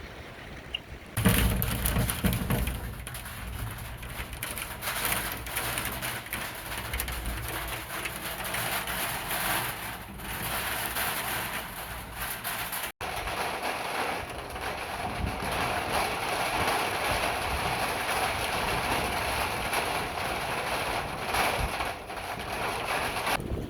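Rain falling as a steady, dense hiss. It starts abruptly about a second in and breaks off for an instant about halfway through.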